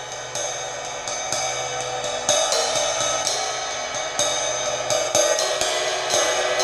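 Drum kit being played, with cymbals ringing and washing over steady strikes on the kit.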